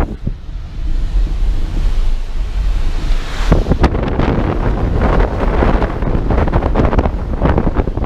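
Wind buffeting the microphone of a camera held out of a moving car's window, a deep rumble with a rushing hiss. About three and a half seconds in it grows louder and gustier.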